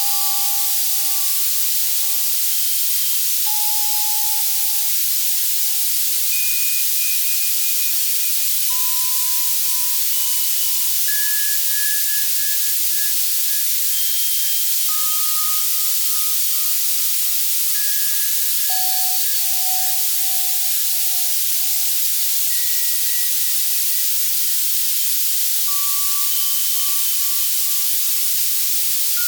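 Access Virus C synthesizer playing a tinnitus masking sound: steady white-noise hiss with soft bell tones over it. The bell notes come one at a time, every second or two, at scattered pitches, and each fades out over a second or more.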